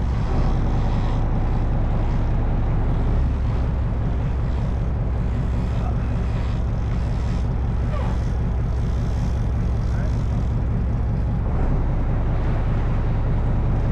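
Sport-fishing boat's engines running with a steady low drone, with wind and water noise over it.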